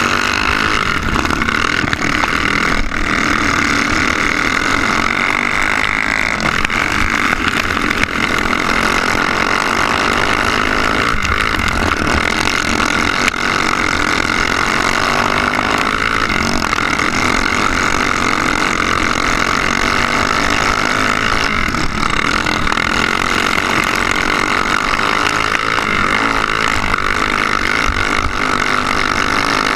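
Go-kart's small single-cylinder engine running steadily at racing speed, heard up close from on board the kart.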